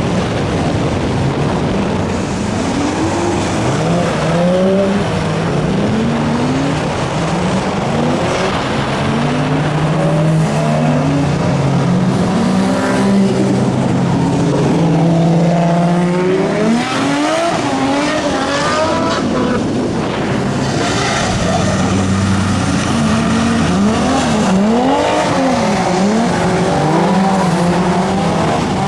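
Car engines at a race circuit revving up and down again and again, their pitch rising and falling many times, over continuous tyre and road noise.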